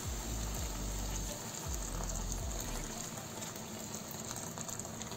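Water poured in a steady stream from a metal vessel into a cooking pot that already holds liquid and diced vegetables, splashing as it fills.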